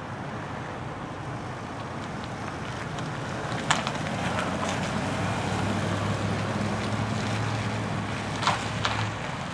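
Fire department SUV driving past at low speed: a steady engine hum and tyre rumble that grow louder as it passes close by. Two short sharp clicks, about four seconds in and again near the end.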